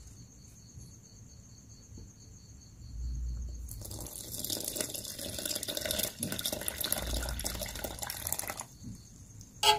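Coconut milk poured from a metal pot into a plastic bowl of rice flour, splashing steadily for about five seconds from about four seconds in.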